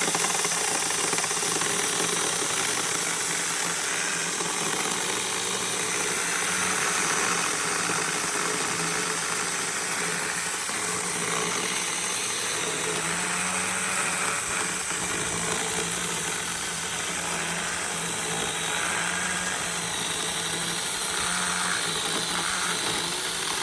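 Battery-powered DINSHARE 4-inch mini chainsaw running steadily, its electric motor humming under the whir of the chain.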